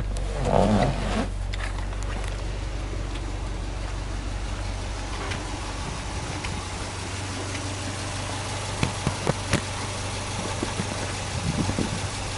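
Subaru Legacy 2.5GT's turbocharged EJ25 flat-four engine idling steadily, a low even hum. A loud rustling bump comes about half a second in, and a few sharp clicks come about three quarters of the way through.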